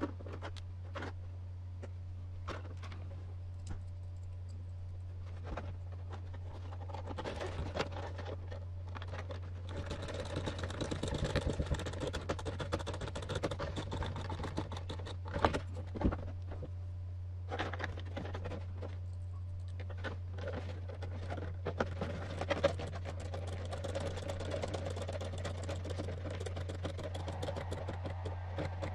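Small screws being driven into hard plastic RC body parts with a hand hex driver, with scattered clicks and scraping as the plastic pieces are handled, over a steady low hum. The clicking and scraping get busier about a third of the way in.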